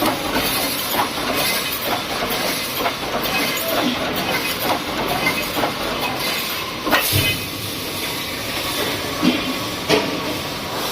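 Automatic welded wire mesh welding machine running: a steady hiss and clatter with irregular metallic knocks, the loudest about seven seconds in and again near the end.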